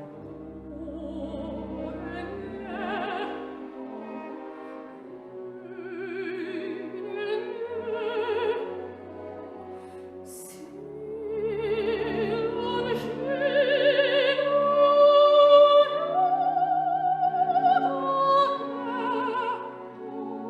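Operatic singing with strong vibrato over an orchestral accompaniment, the voice swelling louder and higher in the second half.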